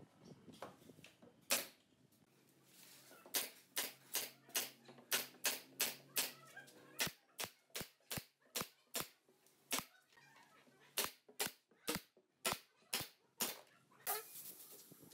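Pneumatic nail gun firing nails into a pine cabinet panel: a quick series of about two dozen sharp shots, often two to three a second, with short pauses between runs. A hiss of air starts near the end.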